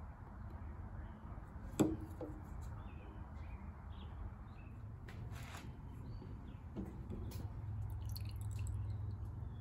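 Low steady background hum with a sharp knock about two seconds in and a softer one near seven seconds, over faint scattered high chirps and a brief hiss in the middle.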